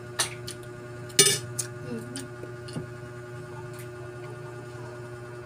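Scattered sharp clicks and clinks of mussel shells and a spoon against the dishes during a shrimp-and-mussel meal eaten by hand, the loudest about a second in, over a steady low hum.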